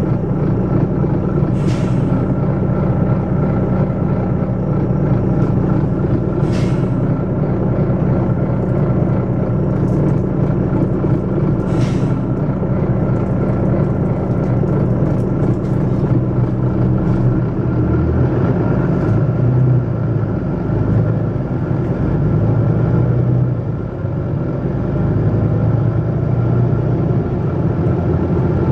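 Volvo B9TL double-decker bus with its six-cylinder diesel engine running loudly, a steady drone that shifts and varies in pitch a little past halfway. Short sharp hisses of air from the bus's air system come three times in the first half.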